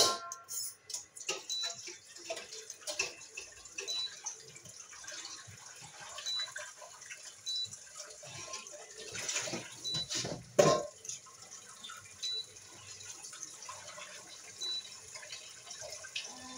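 Kitchen tap running into a sink while cookware is washed by hand, with frequent clatters and knocks of pots and utensils, the loudest about ten and a half seconds in. Faint short high beeps recur every couple of seconds.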